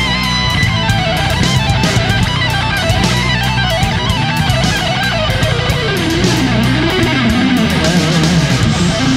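Background rock music: electric guitar playing a winding lead line over a steady drum beat.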